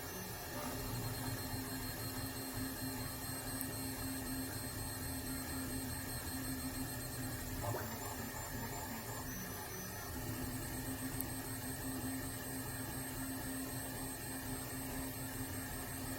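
Anycubic i3 Mega 3D printer running a print: its stepper motors hum a steady tone that stops for a couple of seconds about halfway through and then resumes, over the constant noise of its cooling fans, which are very noisy.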